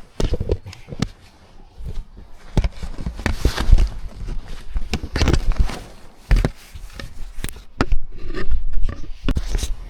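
Irregular knocks, scrapes and rubbing with footsteps as a person squeezes through a gap, the camera handled close to the microphone.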